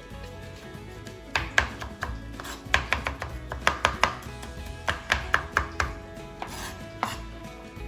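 Large kitchen knife chopping pickles finely on a cutting board: quick runs of sharp knocks from about a second and a half in until about six seconds in.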